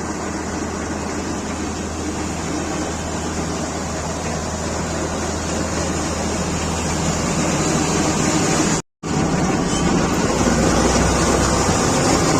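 Combine harvester running steadily: a low engine hum under a wide, even mechanical rush. The sound cuts out for a moment about nine seconds in and comes back slightly louder.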